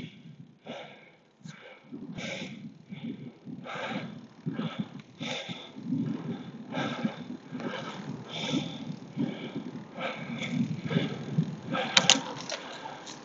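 Cyclist breathing hard, with short heavy breaths about once a second while pedalling up a steep climb, and a sharper breath near the end. Under it runs a steady low rumble of wind and tyre noise.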